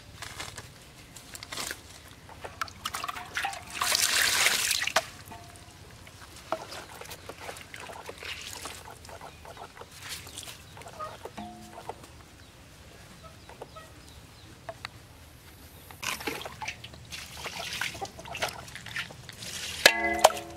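Water splashing and dripping on wet concrete as a puppy is scrubbed with a wet cloth, with the loudest splash about four seconds in and water poured from a scoop near the end. A few short animal calls break in, around the middle and near the end.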